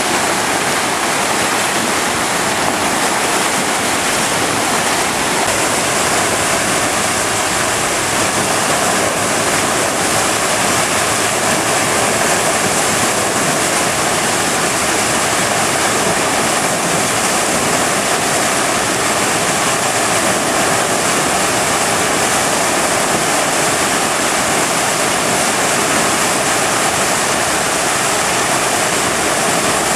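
River dam at high water, floodwater pouring over it and churning in the whitewater below: a steady, even rushing of water.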